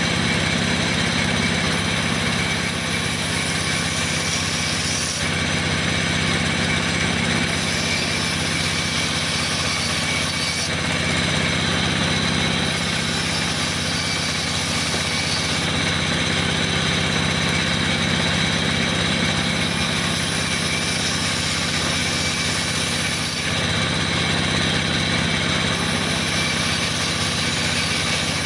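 Band sawmill running steadily, its blade ripping a wooden board lengthwise into lumber as the board is pushed through. A constant machine hum continues underneath, and a higher hiss comes and goes every few seconds.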